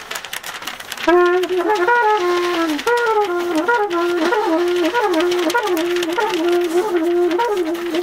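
Cornet playing a jazz line that comes in about a second in and settles into a repeated wavering figure around one note, over light drum and cymbal taps.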